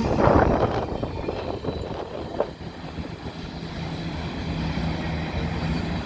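Goods train rolling along the track, a steady rumble that eases after about the first second, with a single sharp knock about two and a half seconds in.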